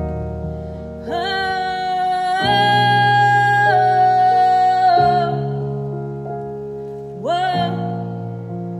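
A woman singing one long held note into a microphone, stepping up in pitch partway through, then a second note sliding up near the end, over a steady piano backing track.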